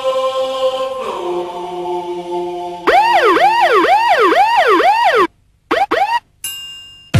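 Soundtrack of synthesized held notes, one chord stepping down to a lower one about a second in. A warbling, siren-like tone then swoops up and down about two and a half times a second before cutting off abruptly, with a few short snatches of it after.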